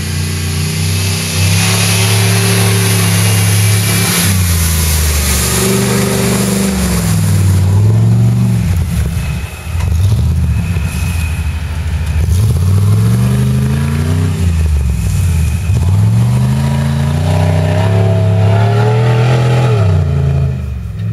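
Competition off-road 4x4 truck's engine revving hard, the revs rising and falling again and again as it drives through a creek crossing and climbs a bush track, passing close by.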